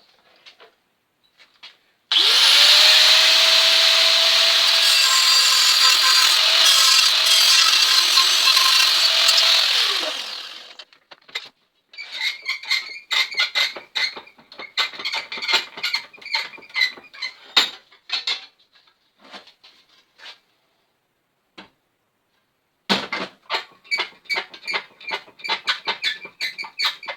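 A handheld power tool spins up, runs under load on sheet metal for about eight seconds, and winds down. Then come two runs of rapid scraping strokes on the metal as the new repair panel is cleaned up.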